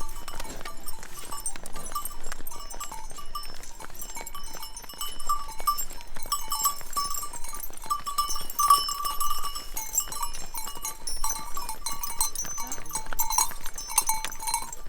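Many large cowbells on a moving herd clanging irregularly, with the strikes overlapping in a dense, continuous ringing.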